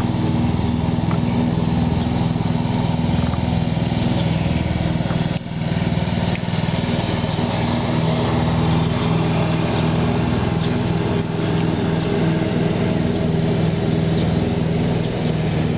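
A small engine running steadily, with a brief dip about five seconds in.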